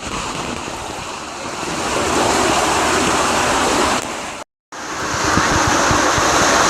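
Rushing water with wind on the microphone, a steady noise that grows louder about two seconds in and cuts out for a moment about four and a half seconds in.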